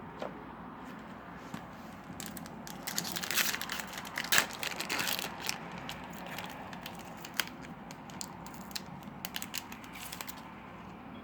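Foil wrapper of a Yu-Gi-Oh booster pack being torn open and crinkled by hand. There are dense bursts of crackling about two to five seconds in and again around nine to ten seconds.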